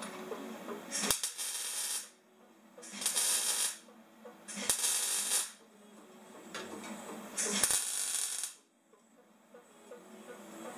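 MIG welder laying short tack welds on a steel exhaust pipe: four bursts of arc noise, each about a second long, each starting with a sharp click.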